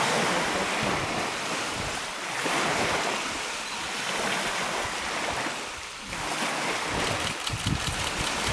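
Small waves lapping and breaking on a lake shore, swelling and ebbing every couple of seconds, with wind buffeting the microphone. Near the end, sharp splashing as a brown bear runs through the shallow water, with low thumps of wind on the microphone.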